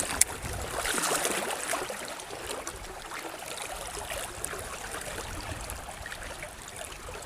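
River water flowing and trickling, with a low rumble underneath and one sharp click just after the start.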